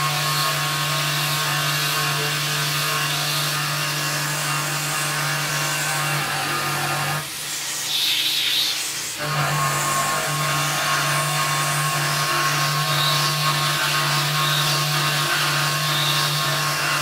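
Tormach PCNC 1100 CNC mill running, its spindle giving a steady hum and whine while an end mill cuts the aluminum plate with a hissing, rasping cutting noise. For about two seconds near the middle the hum drops out, leaving a brighter hiss.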